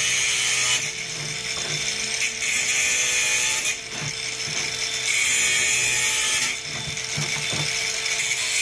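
Angle grinder with a fresh cut-off blade cutting through an electric fan motor's housing screws: the grinder's whine holds steady while harsh cutting hiss comes in three spells of a second or so each.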